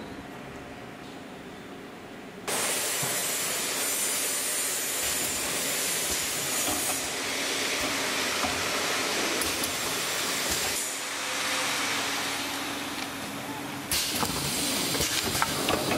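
Rotary honey filling and sealing machine running: a loud, steady hiss that starts abruptly about two and a half seconds in over a faint hum, joined near the end by sharp clicking and clatter of the mechanism.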